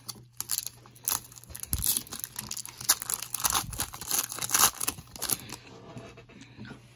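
Foil trading card pack torn open by hand, its wrapper crackling and crinkling in irregular bursts for about five seconds, then going quiet as the cards come out.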